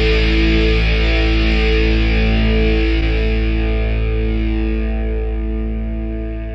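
A punk band's final chord on distorted electric guitar, left to ring out. It holds steady, then fades away slowly over the last few seconds.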